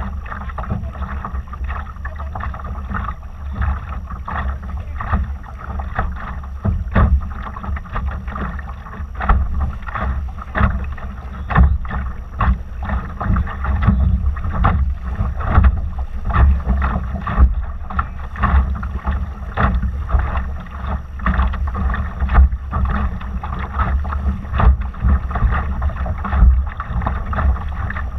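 Wind buffeting the microphone aboard a Laser dinghy under sail, a steady low rumble, with water splashing and slapping against the hull in frequent, irregular sharp hits.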